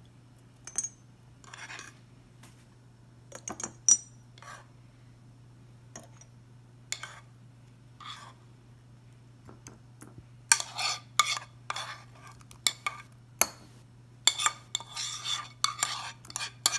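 A spoon clinking against glass jars and scraping a nonstick frying pan as warm berries are spooned out. The clinks are scattered at first, then come thick and fast with scraping over the last several seconds.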